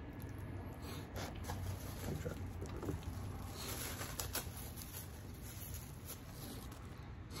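Plastic forks clicking and scraping as mac and cheese is scooped out of a paper cup, with rustling of food wrappers. There are a few sharp clicks, the loudest about three seconds in, and a burst of rustling about four seconds in.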